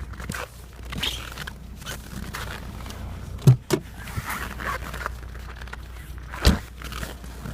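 Lada Kalina 1.4 16-valve engine idling with a tapping from the hydraulic lash adjusters (lifters), a knock the owner traced to worn-out old oil. Two louder knocks come close together about halfway through and another near the end.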